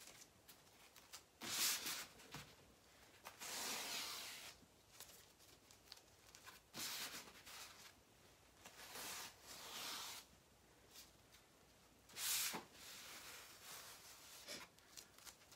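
An adhesive silkscreen transfer being fuzzed on a microfiber towel, pressed down and peeled off again, which takes down its stickiness. Each lift gives a short rasping rip, several times with quiet gaps between.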